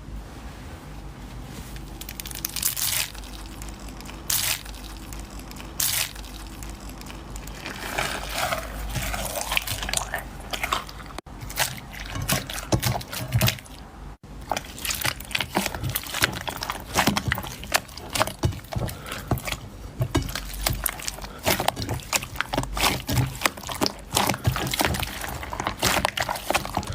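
Slime being squeezed and kneaded by hand, giving wet, sticky clicks and pops. There are a few separate pops at first, then a dense crackle from about eight seconds in.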